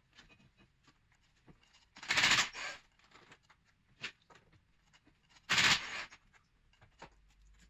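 A cordless 18 V impact gun on a long extension hammers in two short bursts, about two seconds in and again about five and a half seconds in, undoing the M12 spline bolts of the driveshaft's inner CV joint. Light metal clicks from the tool and extension come between the bursts.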